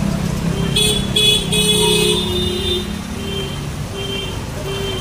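Street traffic: vehicle horns honk several times between about one and three seconds in, over a nearby vehicle engine running. A short electronic beep repeats about every two-thirds of a second.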